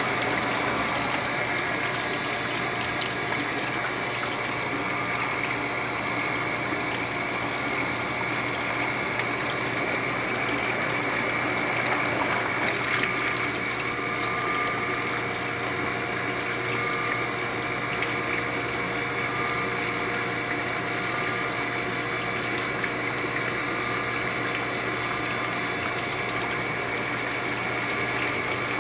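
Small electric water pump running with a steady hum while a stream of water pours from a pipe into a plastic bucket and splashes as it fills.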